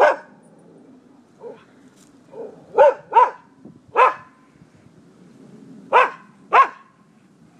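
A dog barking: about eight short, sharp barks with gaps between them, some in quick pairs and a couple of them fainter.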